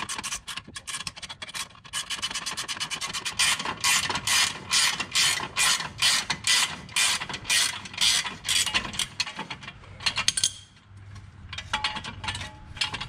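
Ratchet wrench clicking in quick back-and-forth strokes, about two a second, as it turns the nut on a homemade bolt-and-jack-stand puller that is drawing a stuck subframe bushing out. The strokes pause briefly a little past ten seconds in, then resume.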